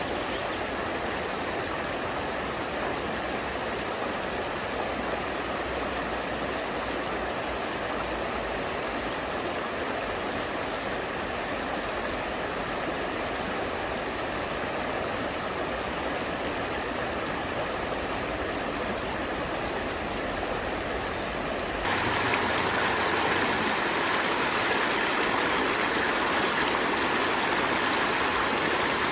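River stream flowing: a steady, even rush of water. About three-quarters of the way through it steps up abruptly louder and brighter, then holds steady.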